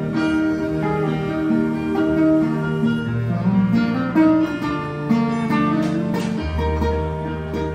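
Live instrumental passage: acoustic guitar strummed and picked along with an electric keyboard, no voice. A deep bass note comes in about six and a half seconds in.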